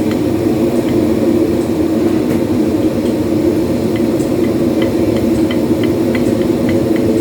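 Steady loud machine hum, with faint short high ticks from about halfway through.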